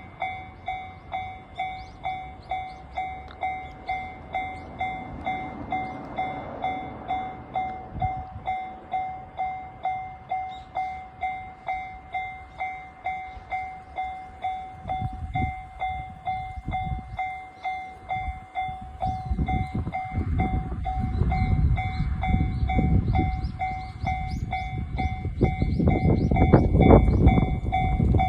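Japanese level-crossing warning bell ringing steadily, about two dings a second. About halfway through, a train approaches and passes over the crossing, its rumble and wheel noise building and loudest near the end.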